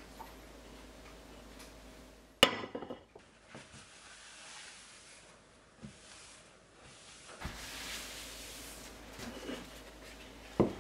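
Kitchen handling sounds: a sharp clink of a ceramic plate against the stone countertop about two and a half seconds in, then a stretch of light rustling as a paper towel wipes flour off the counter, and another knock near the end.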